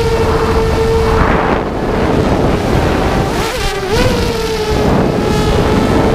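Brushless motors and propellers of a 5-inch FPV racing quadcopter (Multistar Elite motors) whining steadily in flight, with wind rushing over the onboard camera's microphone. About three and a half seconds in the whine dips and wobbles in pitch with a throttle change as the quad flips, then steadies again.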